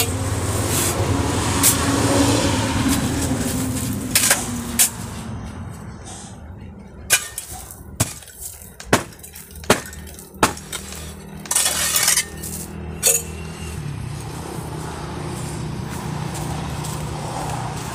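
Twin steel concrete-block mould being struck with a hand tool to pack the mix: about ten sharp metallic knocks, roughly a second apart, with one longer rattle among them. A steady low hum sits under them.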